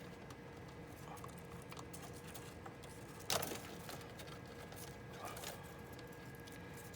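Faint clicks and scrapes of small tools or fingers working a tiny JST micro connector off a laptop speaker's lead, with one louder click about three seconds in, over a faint steady hum.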